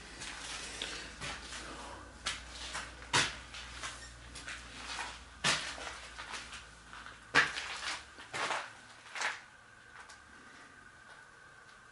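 A few sharp knocks and scuffs at uneven intervals, the loudest about seven seconds in, then a quieter stretch near the end.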